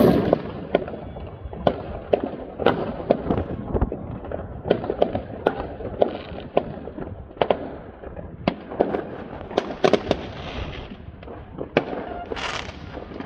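Aerial fireworks bursting: a run of sharp, irregular bangs and pops with crackle between them, and a rushing hiss near the end.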